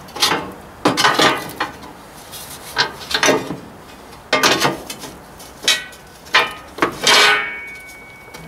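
Metal mower parts being handled and fitted: a series of knocks, clanks and scrapes, about one a second. The longest, near the end, carries a brief metallic ring.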